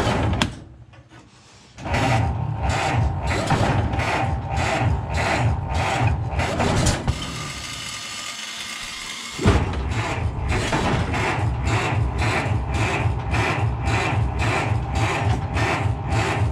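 Ford Model T's electric starter cranking the cold four-cylinder engine slowly, with a rhythmic chug of about three to four compression strokes a second, the choke pulled to prime it. Cranking stops for a moment about a second in and again for about two seconds in the middle, then resumes.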